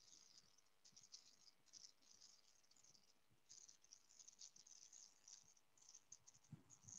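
Near silence: a faint high hiss that comes and goes, with a few soft ticks.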